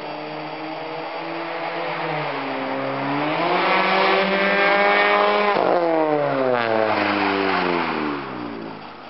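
Car with a Fujitsubo aftermarket exhaust accelerating towards and past: the engine note climbs in pitch and grows louder as it approaches, then drops in pitch as it passes and fades away.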